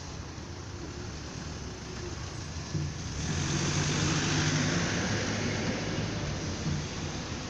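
An SUV drives past close by. Its tyre and engine noise swells about three seconds in, is loudest near the middle, then fades.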